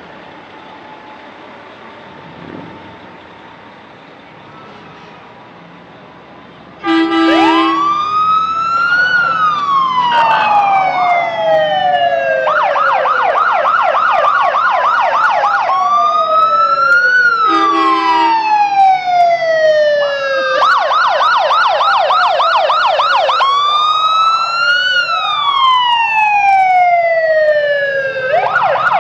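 Emergency vehicle siren starting suddenly about seven seconds in, loud. It alternates long wail cycles, a quick rise and a slow fall, with stretches of fast yelp. A short horn blast sounds at its start and again partway through.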